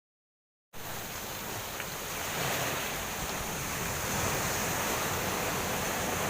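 Steady rushing noise of wind and breaking surf, starting abruptly just under a second in.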